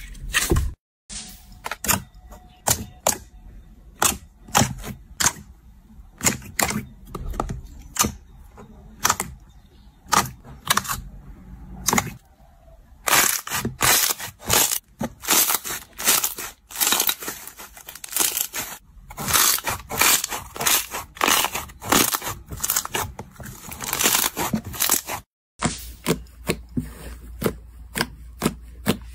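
Slime being pressed and squeezed by hand, giving a run of sharp crackling pops and clicks that are densest in the middle. The sound cuts out briefly twice, where one clip gives way to the next.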